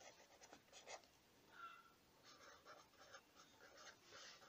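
Faint scratching of a felt-tip marker pen writing on paper, in short irregular strokes as words are written out.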